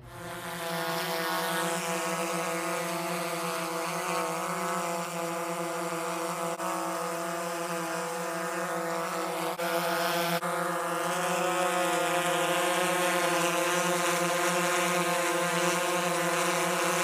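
Yuneec Mantis Q quadcopter hovering, its propellers giving a steady buzzing hum whose pitch wavers slightly, growing a little louder about two-thirds of the way through.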